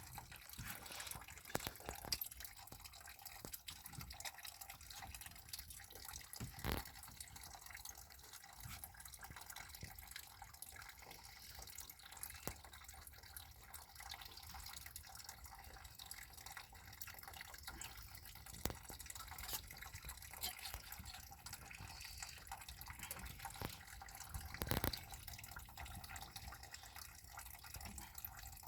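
Water dripping in an irregular patter of small ticks, with a louder knock about seven seconds in and another near the end.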